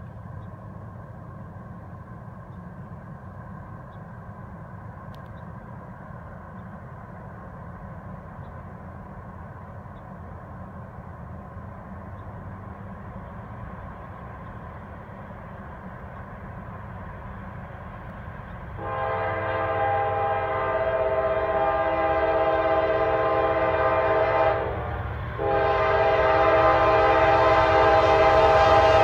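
CSX diesel freight locomotive's air horn sounding two long blasts for the railroad crossing, the second louder as the train draws nearer, over a low steady rumble. The horn comes in about two-thirds of the way through, stops briefly, then sounds again about a second later.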